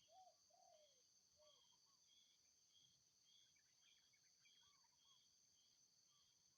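Faint chorus of wild insects: a steady high trill and a chirp repeating about twice a second. Over it a wild bird calls with short curved whistled notes in groups of two or three.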